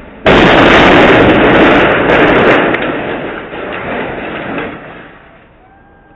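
A sudden, very loud crash or blast: a dense rush of noise that hits about a quarter of a second in and then fades away over about five seconds.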